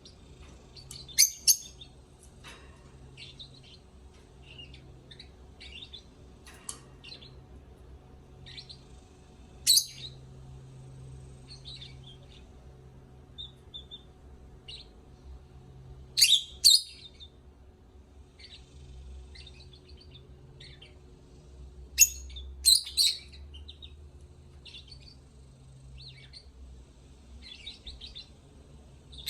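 Lovebirds chirping and chattering, with loud, shrill calls breaking out in short clusters of two or three every few seconds.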